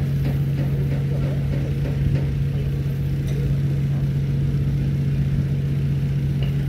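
An engine idling: a steady low drone that holds one pitch without revving or changing.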